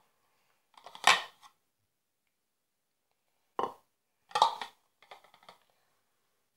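A few short bursts of knocking and scraping from a bowl and kitchen things being handled on the counter. The loudest come about a second in and about four and a half seconds in, with lighter clicks after.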